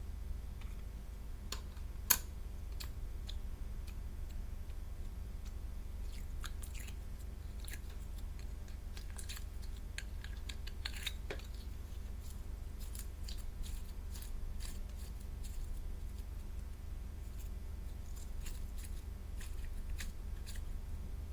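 Slime being handled: scattered small sticky clicks and crackles, with one sharp click about two seconds in, over a steady low hum.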